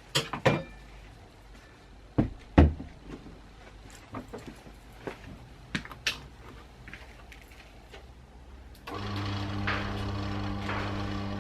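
A few sharp knocks and thumps, the loudest about two and a half seconds in, with lighter clicks after. About nine seconds in, a steady low machine hum starts abruptly.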